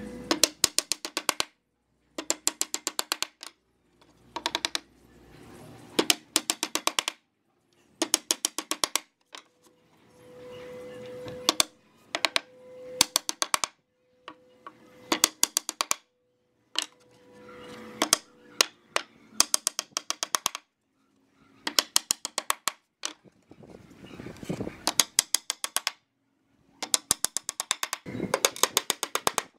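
Claw hammer driving nails into pallet-wood slats: quick runs of sharp blows, several to a run, with short pauses between the runs.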